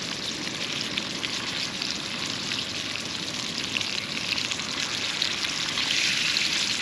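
Fresh-caught fish frying in hot oil in a skillet over a campfire: a steady crackling sizzle that grows louder about five seconds in.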